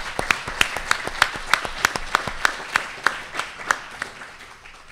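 Audience applauding, with one person's loud claps close by, about three a second. The applause dies away near the end.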